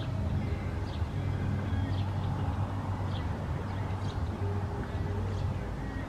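Steady low hum of a running motor, with short high bird chirps about once a second.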